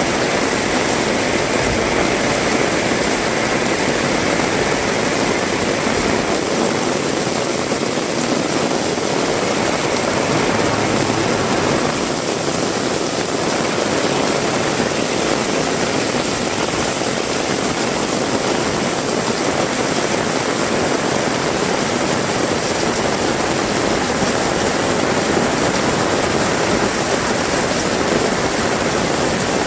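Heavy rain pouring steadily, a dense, even hiss with no break.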